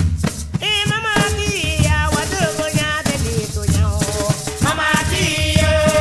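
Background music: a steady shaker-like rattle rhythm over a heavy bass, with a voice singing a melody from about half a second in.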